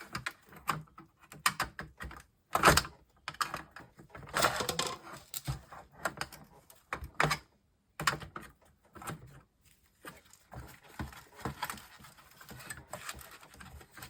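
Irregular clicks, knocks and rattles of hands and tools working on a monitor's plastic and metal chassis and circuit board, trying to free a board that is still held down. Two sharper knocks stand out, about two and a half and seven seconds in.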